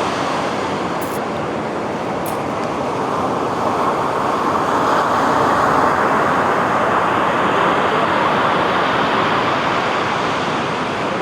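Ocean surf washing on a beach: a steady rushing of waves that swells in the middle and eases off toward the end.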